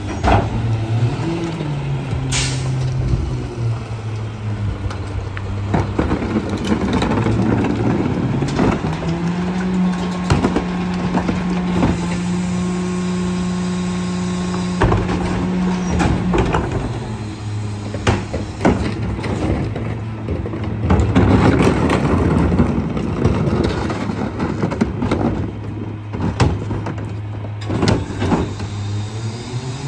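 Old CCC-chassis McNeilus rear-loader garbage truck running at idle. Its engine speeds up to a higher steady pitch for about seven seconds in the middle, and again near the end, as the hydraulic cart tipper lifts and dumps a recycling cart. Knocks and clatter from the carts and the tipper sound throughout.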